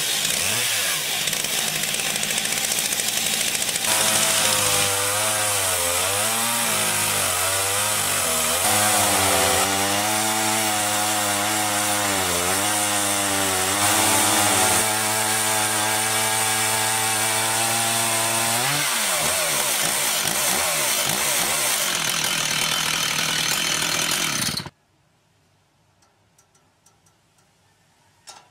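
Chainsaw in a chainsaw mill running under load as it rips lengthwise through a large log, its engine note wavering as it works through the cut. The sound cuts off abruptly near the end, leaving a few seconds of near silence.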